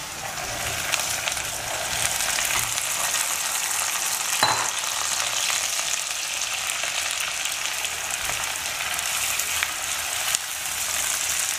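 Hot oil sizzling as pressure-cooked mutton pieces go into a pan of fried onions, getting louder over the first two seconds, then stirred with a silicone spatula while the frying crackles steadily. One sharper knock comes about four and a half seconds in.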